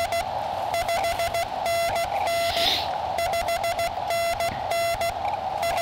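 Morse code (CW) from a QCX Mini transceiver: one steady tone keyed in short and long marks at a brisk pace over the receiver's narrow band of hiss, a station's callsign coming in during a contact. A brief hiss comes about two and a half seconds in.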